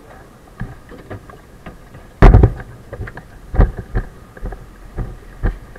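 A firefighter climbing down from a fire engine's cab: a loud thump about two seconds in, then irregular heavy footsteps on gravel.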